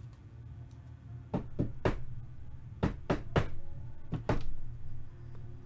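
Sharp knocks, eight in three quick groups of two or three, over a steady low hum.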